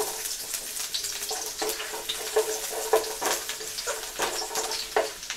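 Chopped garlic sizzling in hot oil in a nonstick frying pan, stirred with a wooden spatula that scrapes and taps against the pan at irregular moments.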